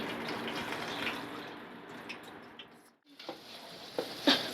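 A steady watery hiss that fades away about three seconds in, followed by a few faint clicks.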